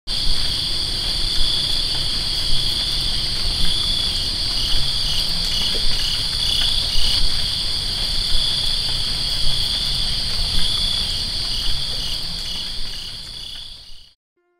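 A chorus of insects chirping steadily in high, pulsing bands, with a low rumble underneath and swells about once a second; it fades out near the end.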